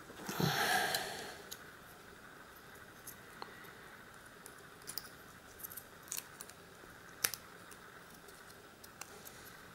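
Small metallic clicks and taps from handling a brass lock cylinder while prying its circlip off, scattered irregularly with one sharper click about seven seconds in. A brief louder rustle of handling comes near the start.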